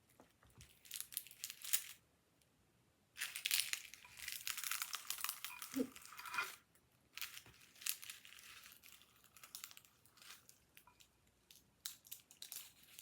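Crisp baked phyllo layers of baklava crackling and crinkling as a piece is cut and pulled out of the pan: a couple of short crackles, then a long stretch of dense crackling from about three to six and a half seconds in, then scattered crackles.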